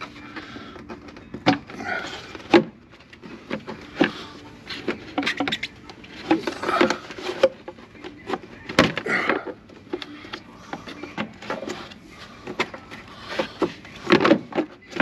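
Irregular clinks, knocks and scrapes of hand tools on metal as a bolt is worked loose and removed.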